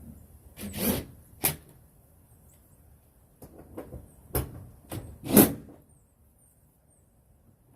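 Irregular clunks and scrapes of tools and suspension parts being handled, about half a dozen over the first six seconds, the loudest about five and a half seconds in.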